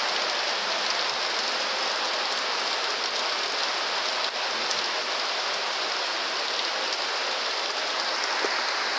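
Heavy rain falling steadily on trees and foliage, a constant hiss with a few single drops ticking close by.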